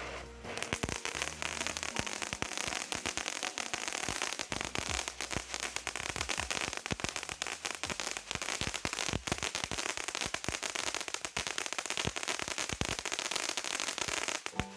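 Consumer ground firework crackling: a dense, continuous stream of sharp pops and crackles over a steady hiss, stopping abruptly at the end.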